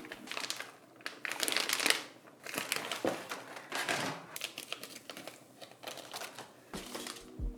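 Crinkling and rustling of packaging material being handled, in a series of short irregular bursts.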